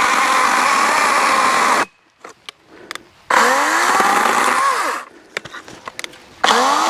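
Wild Badger Power 40-volt battery electric chainsaw with a 16-inch bar cutting into a dead oak limb in short runs: it runs for about two seconds, stops, runs again for under two seconds, then starts once more near the end, each time with a rising whine as the motor spins up.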